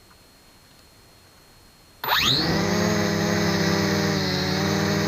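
MJX X400 V2 quadcopter's motors spinning up about two seconds in, the whine rising quickly in pitch and then holding steady.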